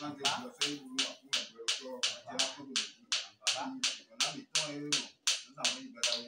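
Steady sharp handclaps, about three a second, keeping time under a group chant.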